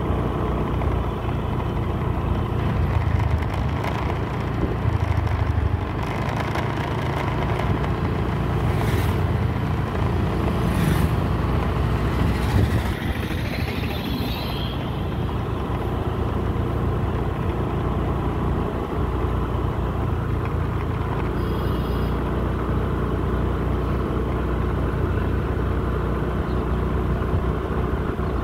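Steady running noise from a vehicle travelling along a paved road: engine, tyre and wind noise, with a brief rising sound about halfway through.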